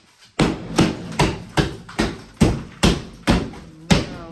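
Hammer blows struck in a fast, even rhythm, about two and a half a second, starting about half a second in.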